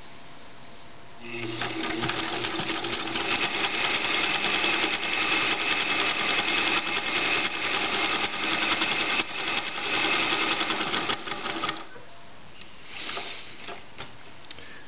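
1956 Pfaff 130 sewing machine running at a steady speed, straight stitching through cloth at stitch width 0, with the rapid beat of the needle strokes. It starts about a second in and stops about twelve seconds in. A few faint handling knocks follow.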